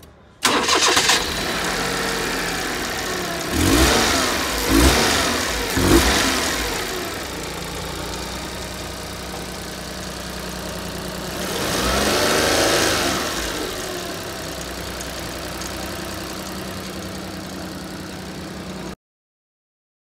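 Nissan Clipper's three-cylinder kei engine starting, then running at idle. It is blipped up in revs three times in quick succession, later revved once in a slower rise and fall, and the sound cuts off abruptly near the end.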